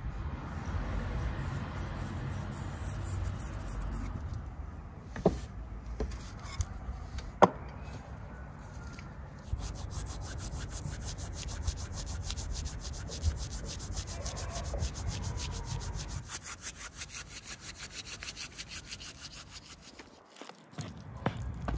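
Dried herbs crumbled between rubbing palms: a fast, even run of dry rubbing strokes, several a second, after two light knocks.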